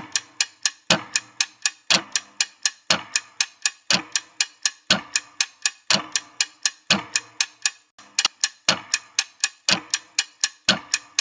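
Clock-ticking countdown sound effect: sharp, even ticks about four a second, with a heavier tick on each second and a brief break about eight seconds in.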